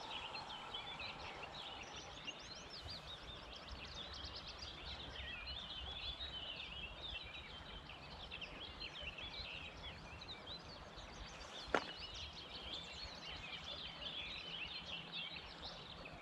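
Many songbirds singing at once: a dense, overlapping chorus of short high chirps and trills, with a single sharp click about twelve seconds in.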